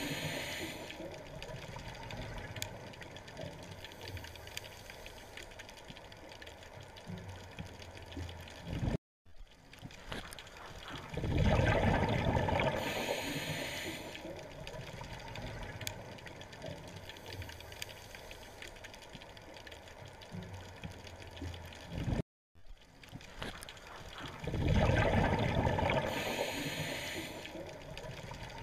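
Underwater sound of rushing bubbles over a steady watery hiss. It swells into a loud rush twice, about thirteen seconds apart, and cuts out to silence for a moment twice.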